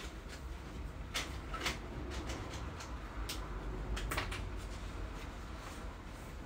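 Black pen writing on a paper tracker sheet on a desk: faint scratching strokes with a few short taps and clicks, over a low steady room hum.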